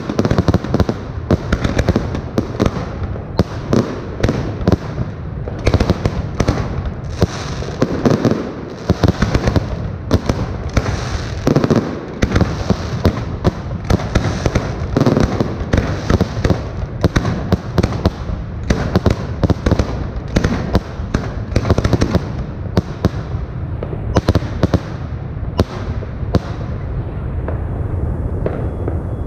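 Aerial fireworks: shells launching and bursting in rapid, overlapping bangs with crackle between them. The bangs thin out over the last few seconds.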